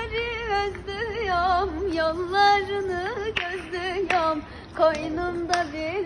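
A woman singing a Turkish folk song solo, drawing long ornamented notes with heavy vibrato and quick turns in pitch. A few sharp clicks fall in the second half.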